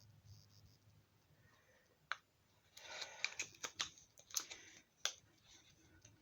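Faint handling sounds: a sharp click about two seconds in, then a couple of seconds of quick small clicks and rustling as small items and packaging are handled.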